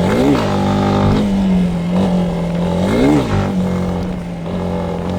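Yamaha Lander 250's single-cylinder engine revved while the bike stands still, holding a steady high note with two quick throttle blips about three seconds apart, each rising and falling in pitch.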